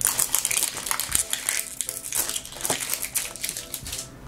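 Thin plastic wrap crinkling and crackling as it is peeled and torn off a plastic toy capsule ball by hand, in a run of many quick, irregular crackles.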